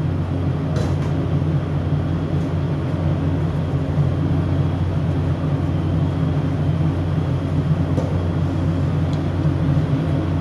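A steady low machine hum, with a few faint light clicks.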